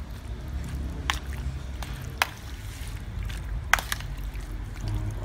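Marinated beef slices being squished and turned by hand and metal spoon in a plastic bowl, with three sharp clicks of the spoon against the bowl, the loudest near the end.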